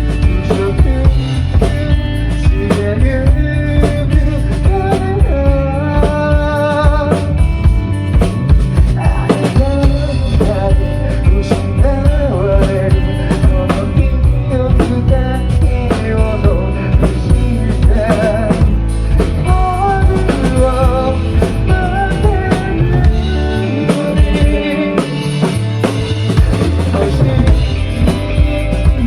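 Rock band playing live: a drum kit keeping a steady beat with rimshots and bass drum, under bass, guitar and a wavering melodic line that sounds at times like singing.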